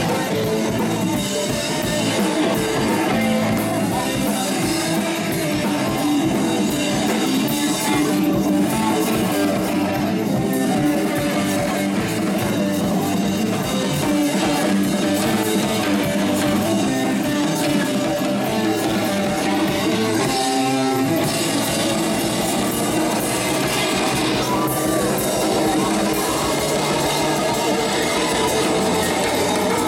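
Rock band playing live through the loudspeakers of a sound truck: electric guitar and drums, with some singing. The music drops out briefly about twenty seconds in, then carries on.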